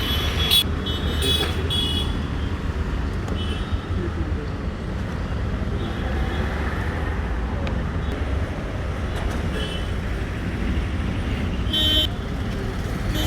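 Busy street traffic running steadily, with vehicle horns tooting in short blasts several times: a cluster at the start and a louder blast near the end.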